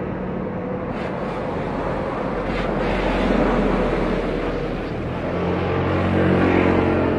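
Jet engine noise from a Boeing 737 MAX 8 with CFM LEAP-1B engines as it flies low over the runway and touches down, with wind noise on the microphone. A steady low engine hum strengthens about five seconds in.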